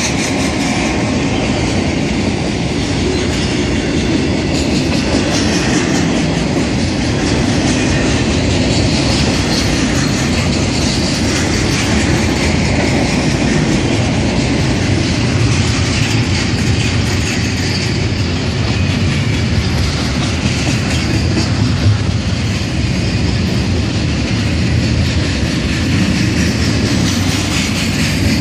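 Norfolk Southern freight train of autorack and double-stack intermodal container cars rolling past: a steady rumble and clatter of steel wheels on the rails, unbroken throughout.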